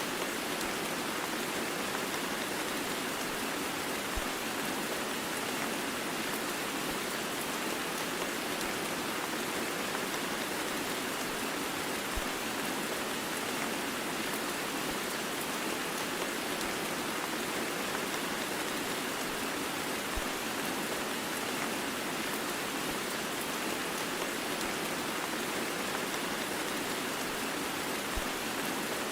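Heavy rain blended with white noise: a steady, even hiss of falling rain with no break or change. Faint low thuds come about every eight seconds.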